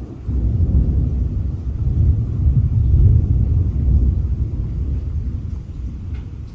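Rolling thunder: a low rumble that swells sharply just after the start, is loudest about three seconds in, and fades away toward the end.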